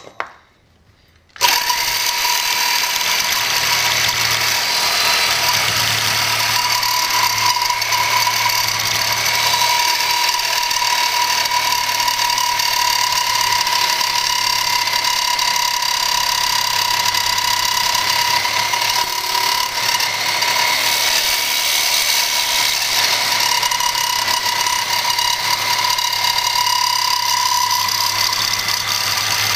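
Reciprocating saw with a Diablo bi-metal blade cutting hardened tool-grade steel (54 to 58 Rockwell). It starts suddenly about a second and a half in and then runs steadily, a high even tone over the hiss of the teeth grinding on the steel.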